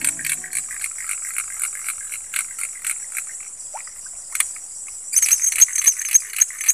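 Insects chirping: a steady high-pitched drone with scattered short chirps. About five seconds in, a louder insect call joins, pulsing about four times a second.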